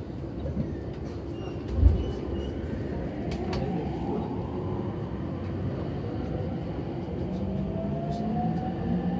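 JR East E231-series electric train car running, its Mitsubishi IGBT VVVF inverter and traction motor whine rising slowly in pitch as the train accelerates. A single low thud comes about two seconds in.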